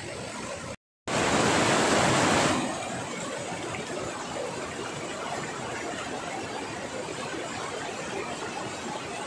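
Shallow mountain river rushing over rocks and boulders, a steady rush of water. The sound cuts out for a moment about a second in, then comes back louder for about a second and a half before settling to an even rush.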